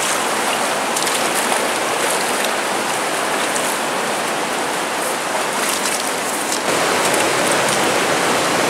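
Steady rushing of a fast-flowing creek's water, a loud, even noise that holds throughout.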